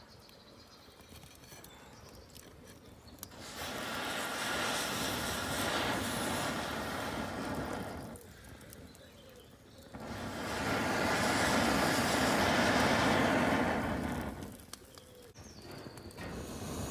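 Long blows of breath through a telescopic metal fire blowpipe into the embers of a wood fire, heard as a rushing hiss. Two blows of about four seconds each with a pause between them, and a third starting near the end.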